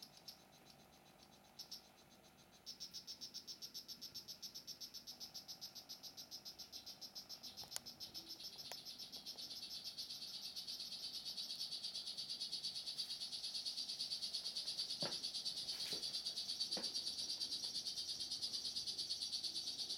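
Male strawberry poison dart frog (Oophaga pumilio) calling: a couple of single high chirps, then from about three seconds in a long, unbroken train of rapid high buzzing chirps, about five a second, that grows louder around ten seconds in. A few faint clicks near the end.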